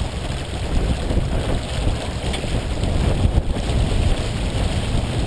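Wind buffeting the microphone over the steady rush and splash of water along the bow of a Columbia 30 sailboat heeled under sail.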